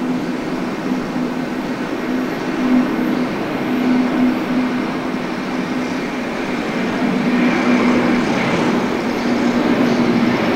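Airbus A330-300 airliner's jet engines at takeoff thrust: a steady rushing roar with a low hum, slowly growing louder, and a faint higher whine coming in past the middle.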